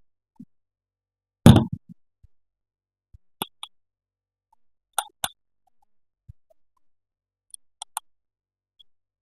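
Plastic toy parts being handled: a series of sharp clicks and taps on silence, with one louder knock about a second and a half in, then clicks in pairs.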